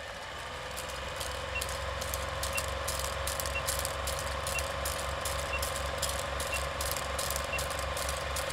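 Intro sound effect of a running machine: a steady whirr over a low pulsing hum, scattered crackling clicks and a soft tick about once a second, fading in over the first second.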